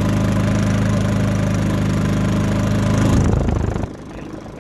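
A 3500-watt inverter generator running steadily under load from a truck's block heater, an even engine hum. Just before the end it drops sharply in loudness but keeps running.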